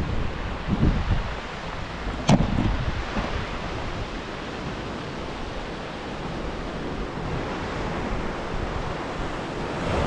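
Strong wind buffeting the microphone over waves breaking on a rocky shore, a steady rushing noise, with one sharp knock a little over two seconds in.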